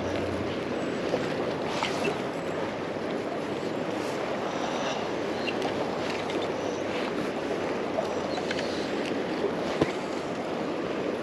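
River water running steadily, an even wash with a few light ticks, one sharper near the end.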